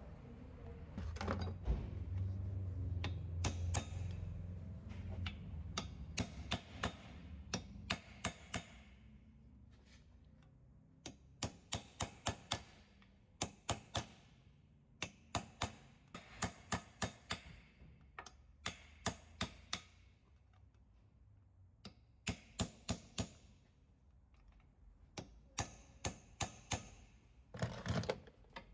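Hammer blows on metal, struck in bursts of several sharp, ringing hits about four a second with short pauses between, as parts are knocked out during a wheel bearing replacement. A low hum runs through the first few seconds.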